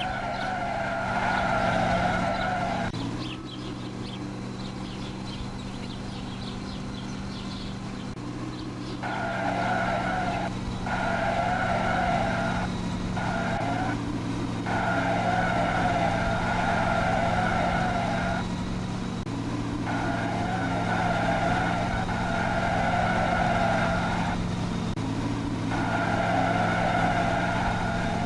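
Small electric motor of a toy RC vehicle whining in on-off stretches of a few seconds, over a steady low hum.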